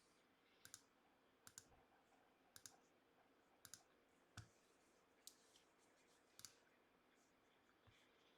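Faint clicks of a computer mouse, roughly one every second, most of them in quick pairs.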